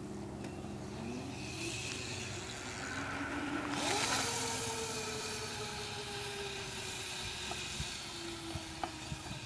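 A kid-sized motorbike's motor speeding up, its whine rising in pitch to its loudest about four seconds in, then a steady hum that falls slowly in pitch as the bike rides away.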